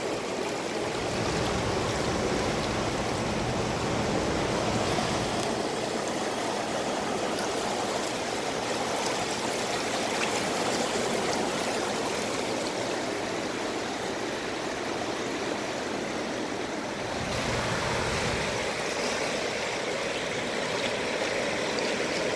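Fast river current rushing and splashing over rocks at the water's edge, a steady wash of water noise.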